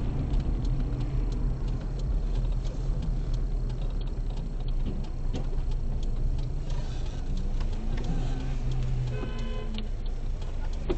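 Dashcam audio from inside a car driving slowly in traffic: a steady low engine and road hum with a regular light ticking over it, and a brief pitched sound about nine seconds in.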